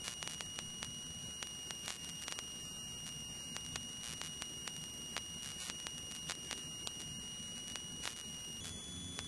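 Cockpit intercom feed of a Beech Duchess light twin in flight: a steady high-pitched electronic whine over a low engine drone, with scattered faint clicks. The whine steps up slightly in pitch near the end.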